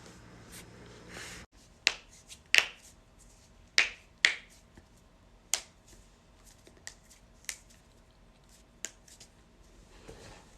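Joints cracking: a series of sharp pops, about eight clear ones with smaller clicks between, the loudest a cluster around two to four seconds in.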